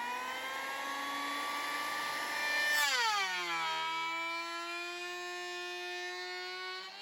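Electric power tool motor whining at high speed, its pitch dropping sharply about three seconds in and then holding lower and steady.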